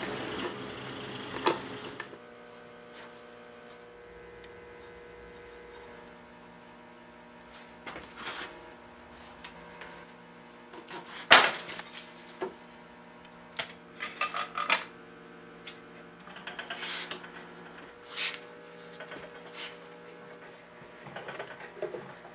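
A blade scraping along veneer on a wooden edge, then scattered knocks and metallic clinks as a wooden caul strip is laid on and steel bar clamps are set and tightened. A sharp knock about halfway through is the loudest, all over a steady electrical hum.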